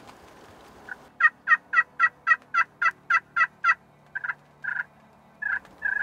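Hen-turkey yelps made on a hunter's turkey call to draw in gobblers. Starting about a second in, there is a quick run of about ten evenly spaced yelps, about four a second, then four slower, longer notes near the end.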